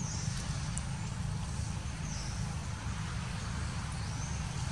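Steady outdoor background: a constant low rumble under a soft hiss, with faint short high chirps every second or two.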